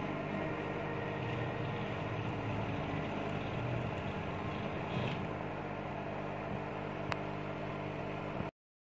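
CO2 laser engraver running a raster engrave, its laser head moving back and forth: a steady mechanical hum with a single click about seven seconds in, stopping abruptly near the end.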